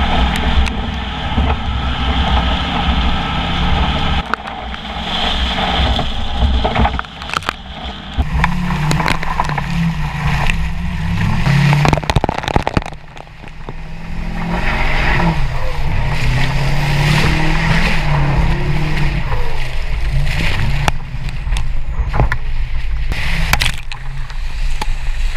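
Heavy four-wheel-drive pickup truck engine revving up and down repeatedly while its tires spin and churn through mud. Sharp clicks and spatters come from clods of mud flung against the truck's body and the wheel-mounted camera. The engine eases off briefly about halfway through.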